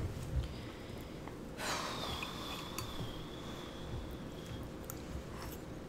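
A person drawing in a noisy breath about a second and a half in, trailing into a thin, faint whistle that holds for a couple of seconds, with a couple of faint clicks.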